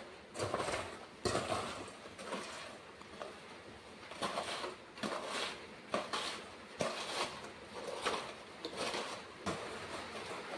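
Metal potato masher pounding biscuits in a stainless steel bowl: uneven knocks and clinks of metal on metal, about one a second, with the crunch of the biscuits breaking.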